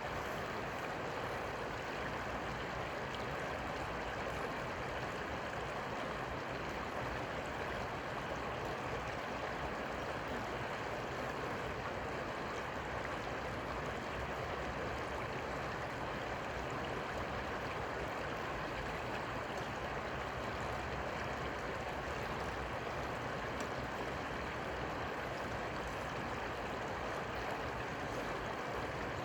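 Steady rush of flowing river water, an even noise with no breaks or distinct splashes.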